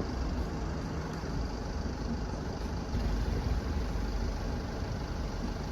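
Steady low rumble of a vehicle running, with no distinct events.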